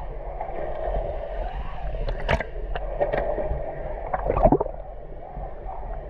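Water gurgling and sloshing around a microphone at the waterline, half submerged, with a few sharp splashes from a swimmer kicking nearby, the loudest about four and a half seconds in.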